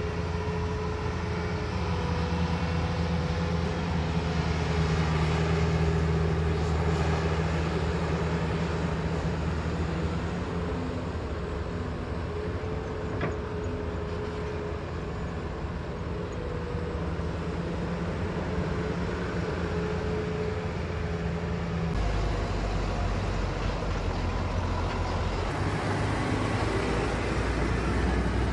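Diesel engine of heavy construction machinery running steadily, with a faint intermittent whine above it; the engine note changes and deepens about three quarters of the way through.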